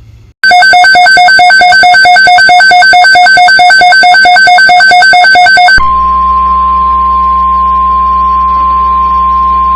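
Loud, fast electronic beeping, about five beeps a second, for about five seconds. It switches abruptly to a steady single-pitch tone: the 1050 Hz NOAA Weather Radio warning alarm tone that comes before a broadcast weather alert.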